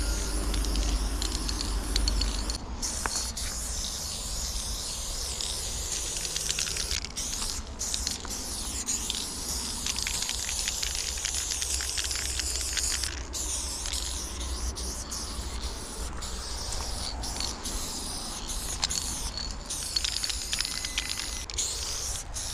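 Aerosol spray paint can hissing in long bursts as paint goes onto a brick wall, broken by short pauses that come more often in the second half.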